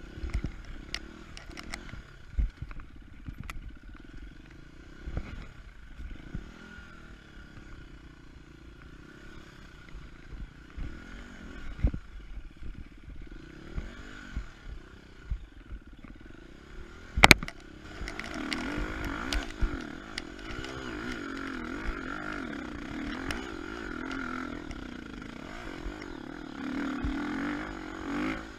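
KTM 250 EXC-F single-cylinder four-stroke dirt bike engine running at low revs over rough ground, with rattles and knocks and a sharp knock about 17 seconds in. From about 18 seconds it gets louder, the revs rising and falling under throttle.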